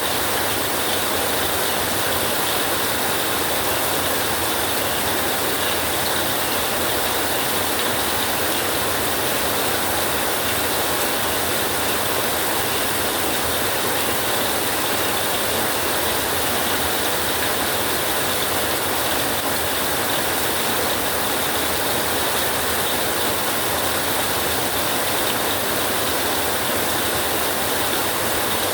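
Rain falling steadily, an even hiss with no thunder claps.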